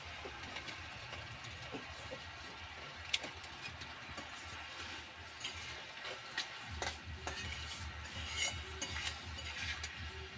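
Metal spatula stirring and scraping through thick, bubbling mango pickle in a metal pot, with irregular clinks against the pot and a soft sizzle. The scrapes come more often in the second half, over a low steady hum.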